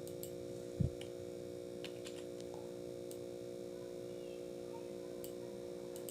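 Steady electrical hum with a few faint clicks and a short low thump about a second in.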